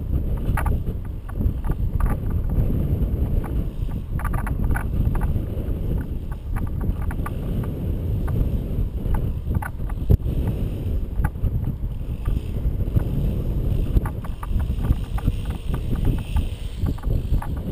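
Wind rushing and buffeting over the microphone of a camera towed on a line beneath a paraglider in flight: a loud, deep rush of air with scattered clicks and knocks.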